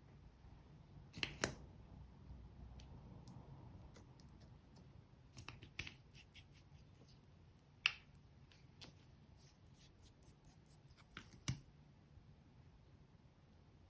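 Slime and eyeshadow being handled by hand: scattered small sharp clicks and pops, the sharpest near the 8-second mark and another near the end, over a quiet background.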